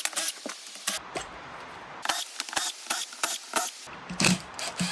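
Quick irregular light metallic clicks and clinks of engine parts and tools being handled during an ATV engine teardown.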